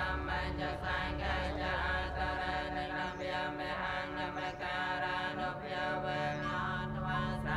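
Voices chanting prayers in a low, steady drone of held notes, typical of prayers for the dead.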